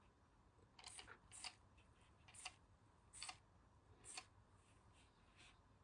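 Hand spray bottle misting water into a glass jar, about five short, faint hissing squirts roughly a second apart.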